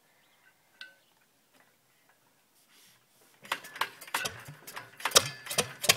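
International Harvester 5-horsepower engine starting on choke. About three and a half seconds in it catches and runs in a string of sharp, evenly spaced beats, about four a second, which get louder a second or so later.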